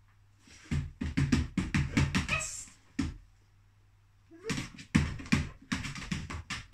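A dog's paws and claws tapping and thumping on a hollow clear plastic storage box as it shifts its feet on top of it: two runs of quick knocks, one in the first half and one near the end.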